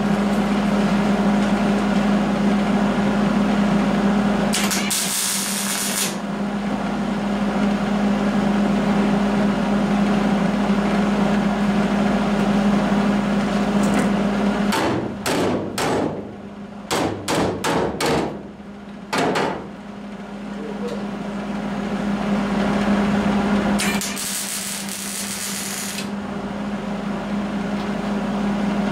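Arc welding a sheet-steel floor patch panel into a pickup cab: a steady crackling buzz from the arc. About halfway it breaks into a run of short separate bursts of weld, then settles back into a long steady run.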